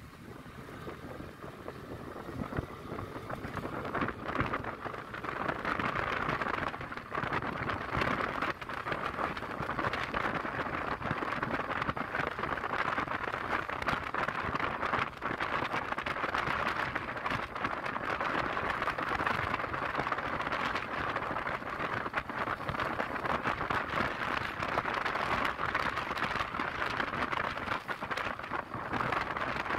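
Riding noise from a scooter on a rough gravel road: tyres crunching over loose stones as a dense hiss full of small scattered clicks, with wind. It grows louder over the first few seconds, then holds steady.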